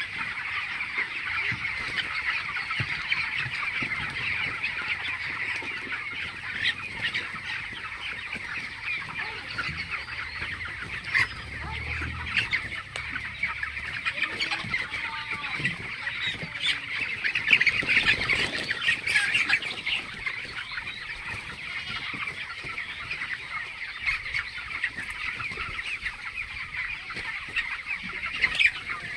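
Flock of hundreds of 22-day-old broiler chickens peeping and cheeping all at once in a dense, high-pitched chatter, a little louder about 17 to 19 seconds in.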